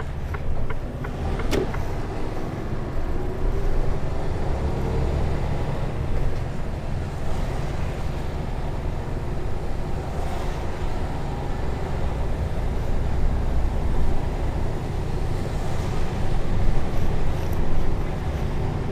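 Mercedes-Benz Antos 1824 lorry running, heard from inside the cab as a steady low rumble.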